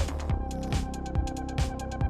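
Electronic background music with a steady, driving beat: a kick drum about every 0.4 seconds with quick hi-hat ticks between.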